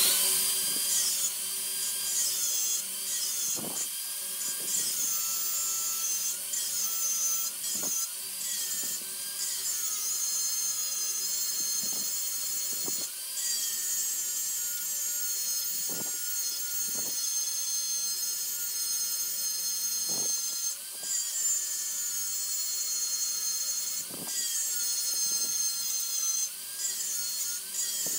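Handheld angle grinder grinding the steel jaw of a pipe wrench, throwing sparks. Its motor whine dips and recovers again and again as the disc is pressed against the metal, over a steady high hiss.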